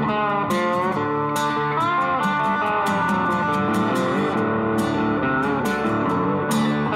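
Background guitar music with a steady beat and bending guitar notes.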